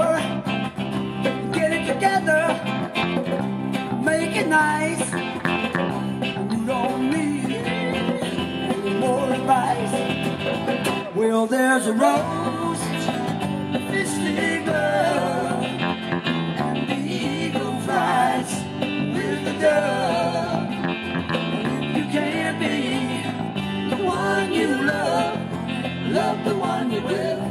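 Live band playing through a PA: acoustic and electric guitars, electric bass and a drum kit, in a country-rock style.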